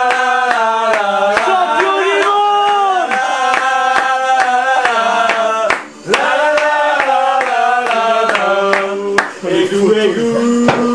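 A group of men singing a chant together, with steady rhythmic clapping; the song breaks off briefly about six seconds in, then starts again.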